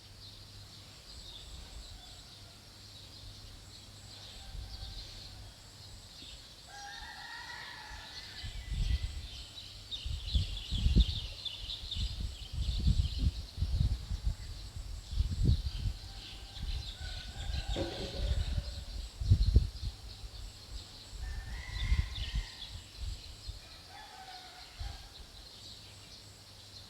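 Outdoor ambience: short bird calls a few times over a steady high insect hiss. Through the middle there are repeated low rumbling thumps, like wind buffeting or handling on the microphone.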